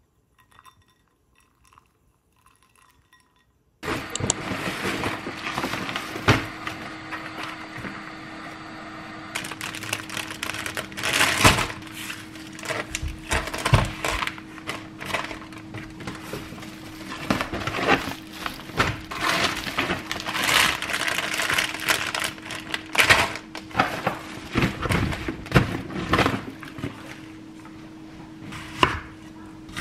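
Groceries in plastic bags and a mesh onion sack being handled and set down on a kitchen counter: crinkling plastic and knocks, over a steady low hum. The first few seconds are nearly silent.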